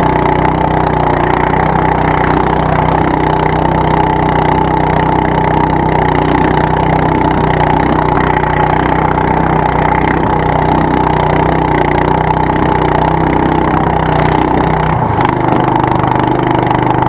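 Small boat's engine running steadily, its note changing about fifteen seconds in.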